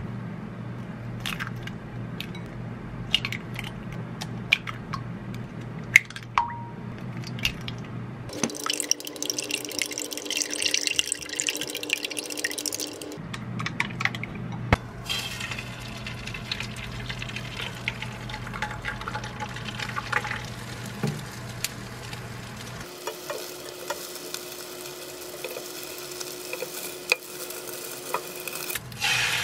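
Eggs cracked one after another into a ceramic bowl, with sharp taps, then beaten with wooden chopsticks clicking against the bowl. Near the end comes a steadier hiss as beaten egg cooks in a nonstick frying pan and is rolled with chopsticks.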